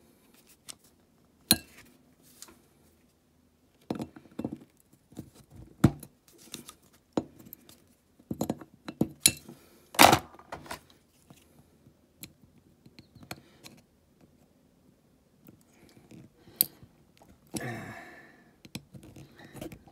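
A die-cast toy van and its small metal and plastic parts being handled and prised apart on a workbench: scattered clicks, taps and knocks, the loudest about halfway through, and a short scrape near the end.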